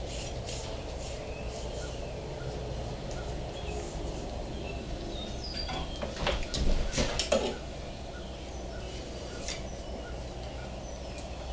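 Handling of metal parts at a workbench: scattered clicks and a brief cluster of louder knocks and clinks a little past the middle, over a steady low hum.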